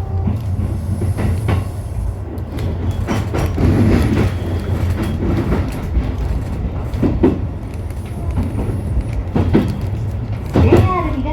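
Interior of a JR East E233-3000 series electric commuter train on the move: a steady low running hum with scattered clicks from the wheels passing over rail joints.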